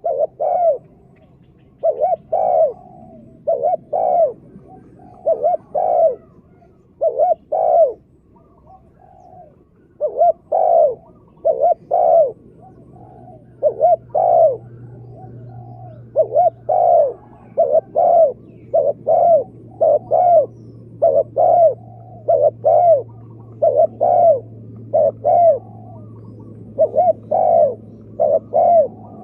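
Spotted dove cooing over and over in short phrases of two or three notes, with brief pauses between phrases. A faint steady hum lies underneath.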